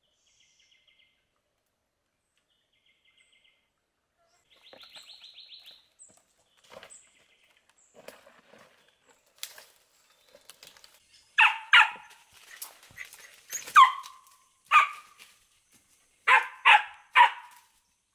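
An animal barking: about seven short, sharp barks in the second half, some single and some in quick runs of two or three.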